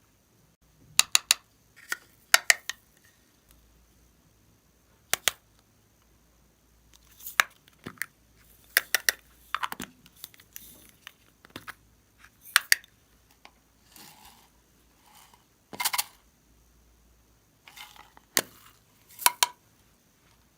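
Slime being pressed and squeezed by hand, giving sharp popping clicks and crackles at irregular intervals, often in quick clusters of two or three.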